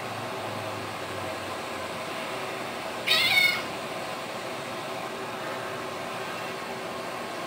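A cat's single short, high-pitched meow about three seconds in, over a steady background hum.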